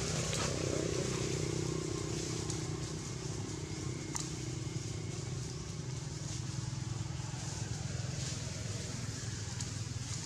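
A motor engine running steadily in the background, a low drone whose upper tone fades away over the first several seconds, with one sharp click about four seconds in.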